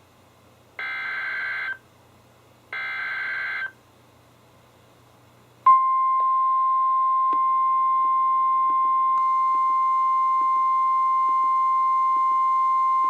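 NOAA Weather Radio Emergency Alert System signal: two bursts of the SAME digital header, each a rough warbling buzz about a second long, then after a short pause the steady, loud 1050 Hz Warning Alarm Tone starts a little past halfway. This is the signal that a weather warning is about to be broadcast, here a flood warning.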